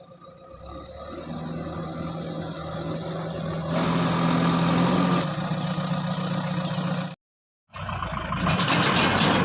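Diesel engine of a JCB backhoe loader running under load, with a steady low hum that grows louder about four seconds in as it is revved. The sound cuts out for half a second near the end, then the engine comes back running hard.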